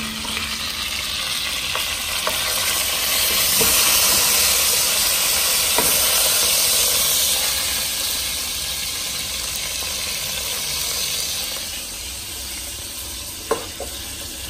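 Lamb shanks sizzling as they sear in hot oil in a pot: a steady frying hiss, loudest in the first half. A few light clicks come through it, with one sharper click near the end.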